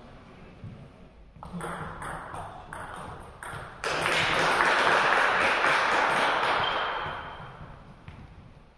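A quick table tennis rally: the celluloid ball clicks off the rackets and the table for about two seconds. Then spectators break into applause, loud for a few seconds before it dies away.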